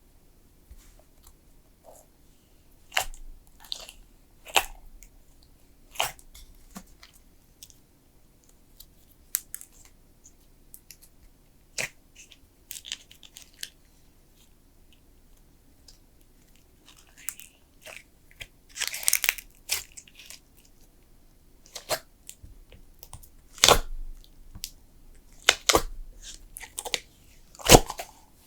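Thick slime being pressed and stretched by hand, giving irregular sticky pops, clicks and crackles. There is a denser run of crackling about two-thirds of the way through and several loud pops near the end.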